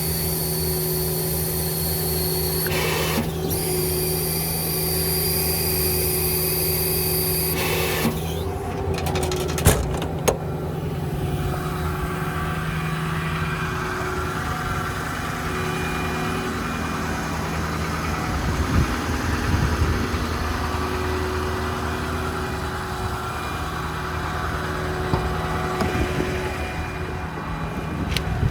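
The 6.4 Power Stroke diesel of a Ford F550 service truck runs steadily with its hydraulic air compressor working. A high hiss, broken briefly about three seconds in, stops about eight seconds in, leaving the steady engine and compressor hum.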